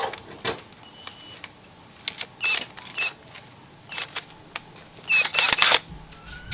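Sharp metallic clicks and clinks of tools and parts being handled at a Honda Dash engine's cam sprocket and timing chain, a few with a brief ringing ping. The loudest, densest run of clinks comes about five seconds in.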